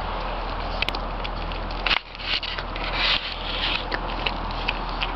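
A kitten chewing and crunching food close to the microphone: a run of small crackling clicks over a steady hiss, with a brief jolt of camera handling about two seconds in.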